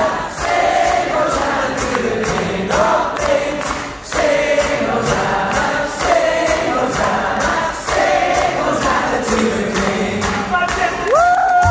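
Large audience singing a British school assembly song together in chorus.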